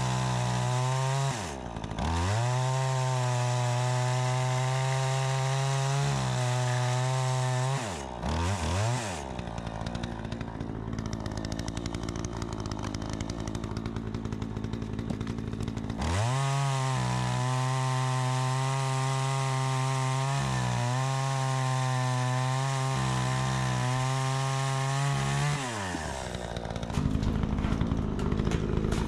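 Two-stroke Troy-Bilt 20-inch chainsaw running with its carburetor freshly adjusted. It revs high and steady, drops and picks back up twice when the throttle is let off. From about 9 to 16 seconds, and again near the end, the engine note sinks and blurs under a rough, noisy sound, typical of the chain cutting through wood.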